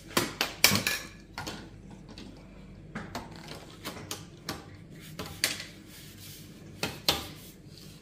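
Irregular sharp knocks and clicks of plastic stick-vacuum parts (wand, floor head) being handled and fitted together, the loudest just under a second in and about seven seconds in.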